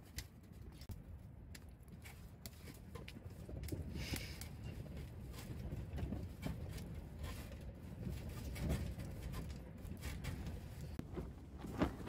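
Wood fire crackling in a Pomoly Taicosa wood stove with scattered sharp pops, over a low rumble of strong wind against the tent that swells after the first couple of seconds.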